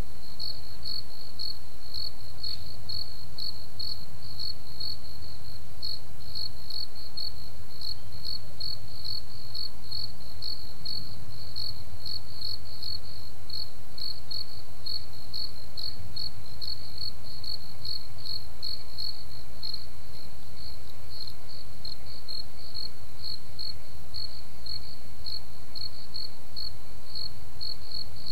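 A cricket chirping steadily at a high pitch, about three chirps a second.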